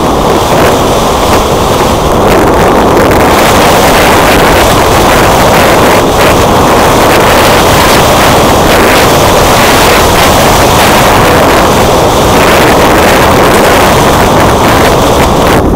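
Loud, steady wind rush buffeting a wing-mounted action camera's microphone in flight, over the electric motor and spinning propeller of an E-flite Timber Turbo RC plane.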